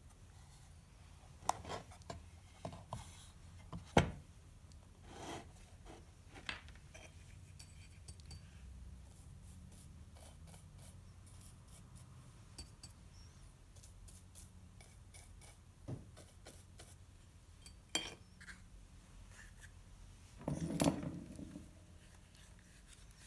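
Scattered light clinks and knocks of copper-foiled glass panels and metal tools being handled on a workbench, the sharpest about four seconds in and a short clatter near the end, over a faint steady low hum.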